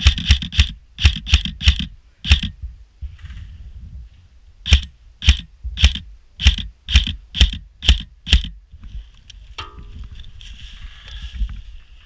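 Airsoft rifle firing single shots in quick succession: a string of about eight sharp cracks, a pause of about two seconds, then about eight more at roughly two a second.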